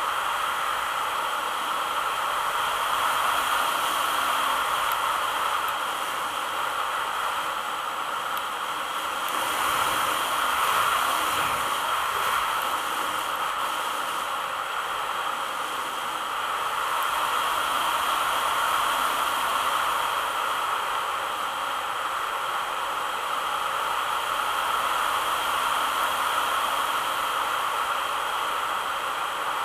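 Steady rushing airflow and hiss on a radio-controlled model plane's onboard camera in flight, swelling and easing gently in level.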